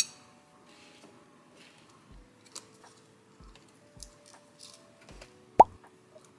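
Small taps, rustles and clicks of hands, a fork and food being handled on a ceramic plate while a bagel sandwich is assembled. One sharp clink stands out about five and a half seconds in.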